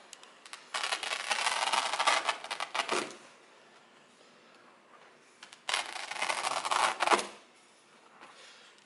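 Knife blade slicing through the woven backing of a rolled carpet in two drawn cuts, each a dry, scratchy run of fine rapid ticks. The first cut starts about a second in and lasts about two seconds; the second comes a little past halfway and lasts about a second and a half.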